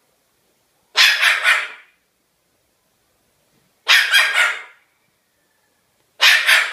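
Cockatoo imitating a dog's bark: three harsh bursts a few seconds apart, each a quick run of about three barks.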